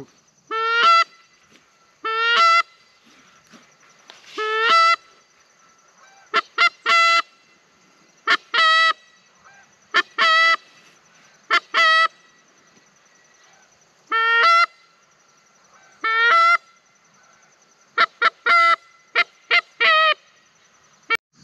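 Goose call blown by a hunter to draw in geese: loud, short honks, each breaking upward in pitch, in ones, twos and threes every second or two, with a quicker run of notes near the end.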